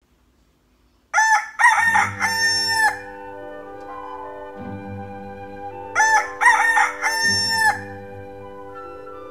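A rooster crowing twice, about a second in and again about six seconds in, each call ending in a long held note. A soft held musical chord plays underneath.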